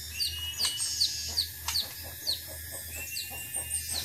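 Birds calling: a short, high, falling chirp repeated about two to three times a second, with a longer steady whistled note near the start and again near the end, over a low steady hum.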